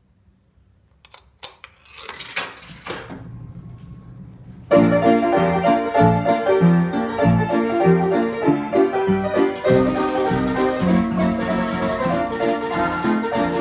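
Seeburg KT Special coin-operated piano starting up: a few mechanical clicks and a low running noise, then about five seconds in the piano breaks into a lively tune. About ten seconds in, bright, sharply struck high notes join the piano.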